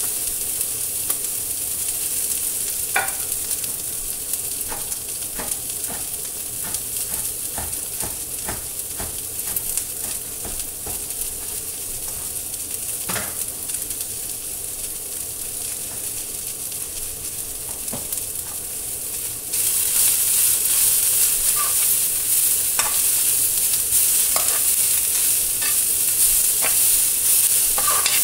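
Chopped mustard greens, spinach and spring onion sizzling in a metal frying pan, with scattered light clicks of a spoon against the pan. The sizzle turns suddenly louder about two-thirds of the way through.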